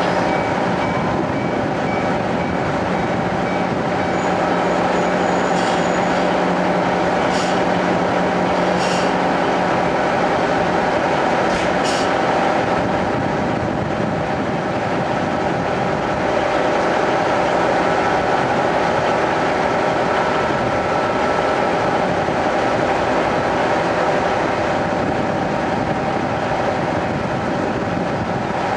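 Diesel railcar engine idling during a station stop, heard from inside the passenger cabin: a steady hum with several held tones. A second diesel railcar pulls in on the next track. A few sharp clicks come between about six and twelve seconds in, and a low tone stops about ten seconds in.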